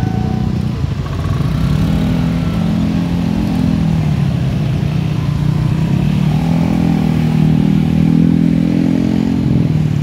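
Many small motorcycle engines and some cars rev and pull away together across a railway level crossing once the barriers have lifted. The engine noise swells twice as the crowd moves off. A steady electronic tone cuts off just after the start.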